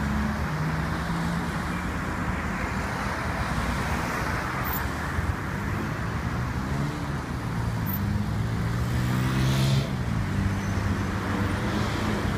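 Road traffic: several cars driving past with a steady mix of engine hum and tyre noise. A little past halfway, one engine rises in pitch as a car speeds up.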